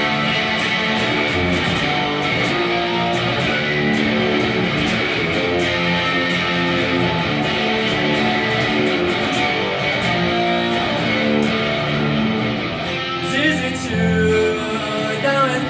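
Instrumental passage of a new-wave rock song: electric guitar strumming over a steady, driving drum beat.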